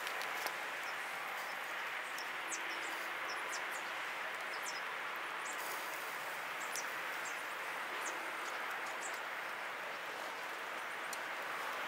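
Leg of fallow deer searing on a hot charcoal grill grate: a steady sizzle with many small crackles and pops scattered through it.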